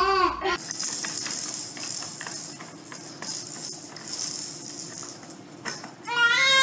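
Rattling made of many quick, irregular clicks, then a cat meows once, a long call, near the end.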